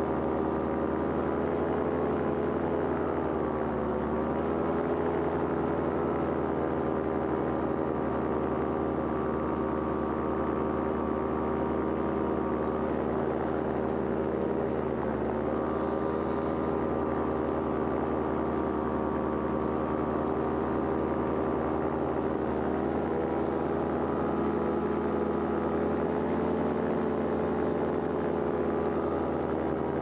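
Paramotor engine and propeller running steadily. Its pitch dips briefly and recovers twice, about four seconds in and again about halfway through.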